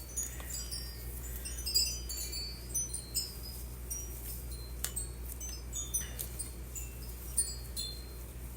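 Tissue paper being unfolded and handled, with scattered high crinkles and a few sharper crackles.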